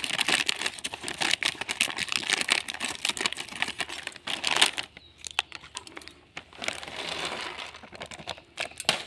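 Plastic snack packet crinkling as it is cut open with scissors, handled and its contents tipped out. Dense crackling and small clicks for the first five seconds or so, then sparser, quieter rustles.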